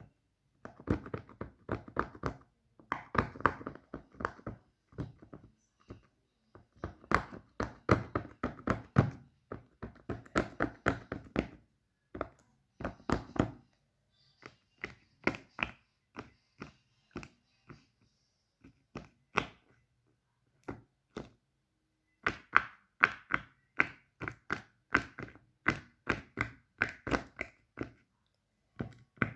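Fidget toys being clicked and tapped by hand. Bursts of rapid, sharp clicks come several a second, broken by short pauses.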